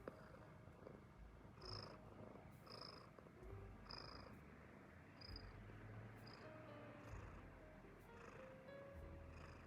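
An American Shorthair cat purring, a soft, low rumble that swells and eases in a slow, even rhythm.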